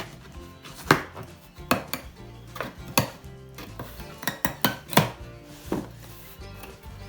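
Hard clicks and clacks of camera accessories and their packaging being handled and set down during an unboxing: about nine sharp knocks, bunched between about one and six seconds in.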